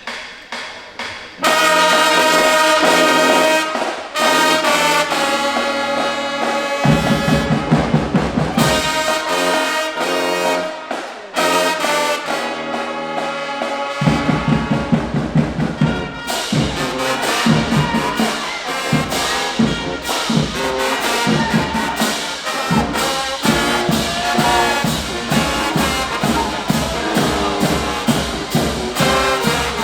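High school marching band playing: the brass section comes in loud with held chords about a second and a half in, and the drums join with a driving beat, dropping out briefly before a steady pounding rhythm under the horns.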